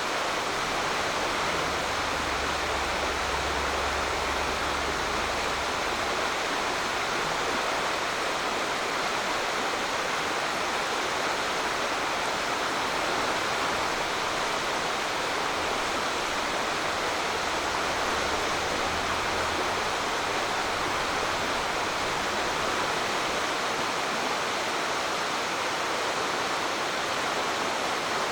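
Waterfall on a mountain stream: a steady, even rush of falling water. A faint low rumble swells in twice.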